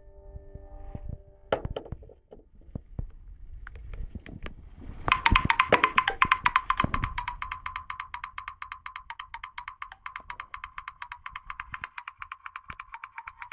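A few clicks and taps on a Nokia 515 mobile phone. Then, about five seconds in, a ringtone starts through the phone's small loudspeaker: a fast, evenly repeating pulsed tone, loudest at first and settling slightly after a couple of seconds.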